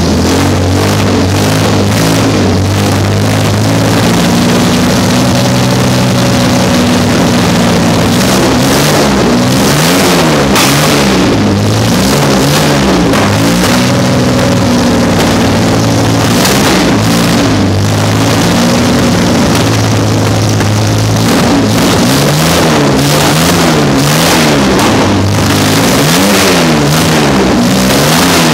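Jaguar 4.2-litre DOHC inline-six, converted from fuel injection to carburettors, running on an engine stand at its first start. The engine speed holds steady for stretches and elsewhere rises and falls in repeated waves about once a second as the throttle is worked.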